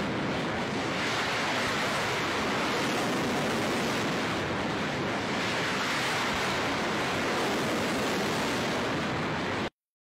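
Kalibr cruise missiles launching from a warship: a steady, rushing roar of the rocket boosters that swells slightly and cuts off abruptly near the end.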